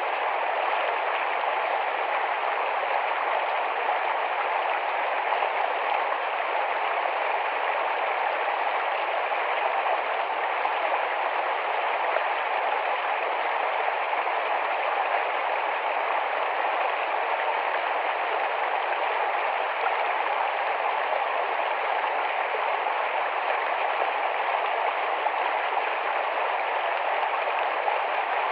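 Small forest stream flowing fast over rocks in a steady, even rush of water.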